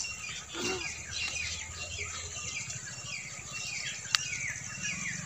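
Birds chirping outdoors: a steady stream of short, falling chirps, several a second, over a low rumble of open-air noise. There is one sharp click about four seconds in.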